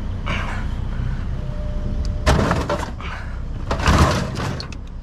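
Two loud bangs about a second and a half apart, the second the louder, over the steady low hum of a running vehicle.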